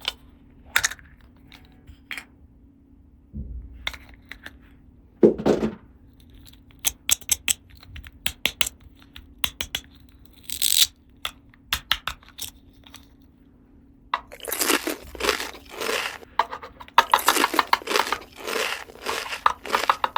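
Small plastic toy pieces and packaging being handled: scattered clicks and taps, then a dense stretch of crinkling and tearing from about fourteen seconds in.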